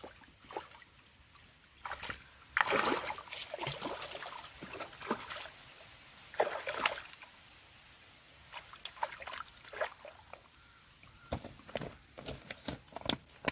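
A hooked fish thrashing and splashing at the surface of shallow water as it is pulled in on a line, in several irregular bursts of splashing.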